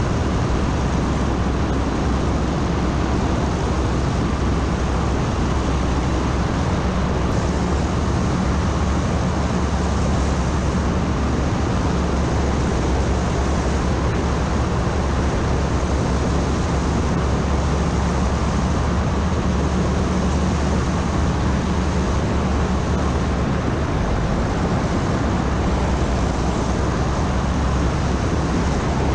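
Ultralight trike's engine and propeller running steadily in cruising flight, with a steady rush of airflow over the open trike.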